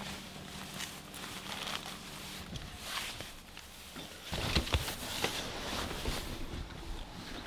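Footsteps scuffing and crunching on a trail, with clothing and gear rustling. A faint low hum is heard for the first two seconds or so, and a louder low rumble begins about four seconds in.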